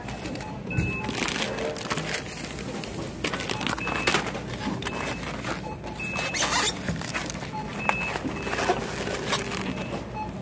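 Groceries being handled in a wire shopping cart: plastic packaging rustling and items clicking and knocking against each other and the cart. Short high beeps sound every second or two.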